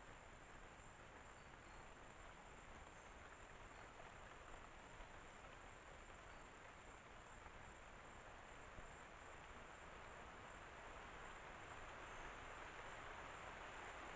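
Faint night-time outdoor ambience: a steady rushing hiss, like wind building, that slowly grows louder, with a thin steady high-pitched tone throughout.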